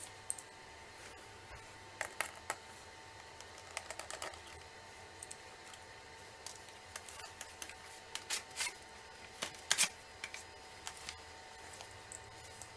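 Irregular light clicks and taps from handling a laptop, in small clusters about two, four and eight to ten seconds in, over a faint steady hum.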